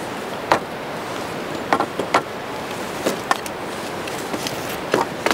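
Wooden poles knocking and clattering against each other as they are laid onto a branch shelter frame: several sharp knocks spread through, over a steady rushing background noise.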